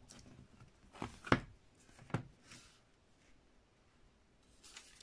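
A grey lino block handled on a table and set into a wooden registration board: three short knocks and taps, the loudest about a second and a half in, with a soft paper rustle near the end.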